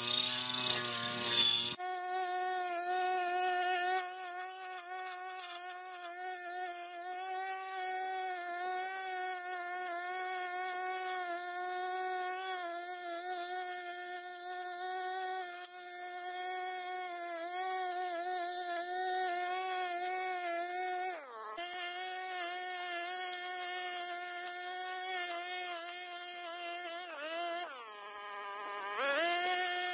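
Backpack brush cutter's small petrol engine running at high revs with a steady, high-pitched buzz as it cuts weeds. For the first two seconds it is rougher and fuller. About 21 seconds in the revs dip sharply and recover, and near the end the throttle is eased off so the pitch sags, then climbs back.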